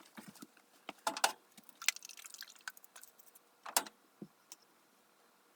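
Light knocks, clicks and rattles of hard objects being handled. The sharpest come about a second in and just before four seconds, and the last second or so is quiet.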